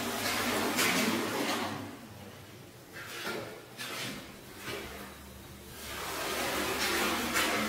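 Cleaning tool dragged in strokes across a wet shaggy rug, a scraping and swishing sound: one long stroke at the start, a few short ones in the middle, and another long one near the end.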